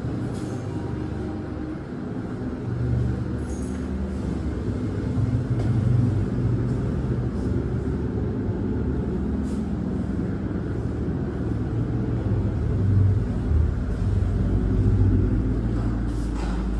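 Steady low rumble, like engines running at a distance, with a few faint clicks and a sharper knock near the end.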